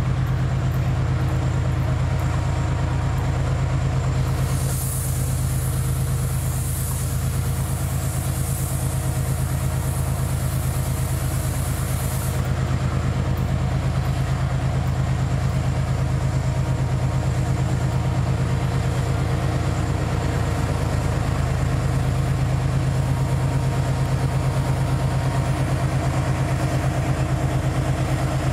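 Diesel-electric freight locomotive engine running steadily with a deep, even hum, and a high hiss that comes in about four seconds in and stops sharply about twelve seconds in.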